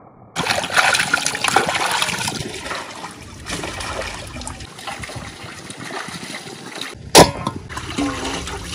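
Water pouring hard into a steel basin of whole plucked chickens, then softer sloshing and splashing as the chickens are rubbed and lifted by hand in the water. A single sharp knock comes about seven seconds in.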